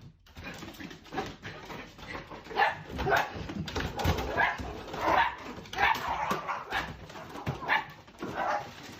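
A dog barking over and over, a bark about every half second to a second.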